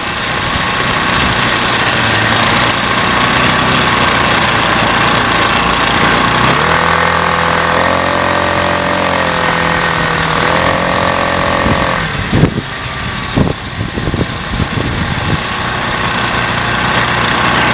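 Ride noise from a moving vehicle: a steady rush of road and wind noise, with an engine note at a steady pitch coming in for several seconds mid-way. It is followed by a cluster of sharp thumps.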